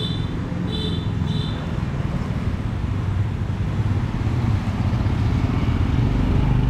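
Road traffic: a steady engine rumble that grows louder in the second half as a vehicle approaches, with three short high beeps in the first second and a half.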